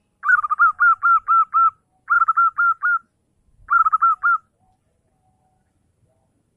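Zebra dove (perkutut) cooing: three phrases of quick repeated notes, about five a second, the first phrase the longest and the last the shortest.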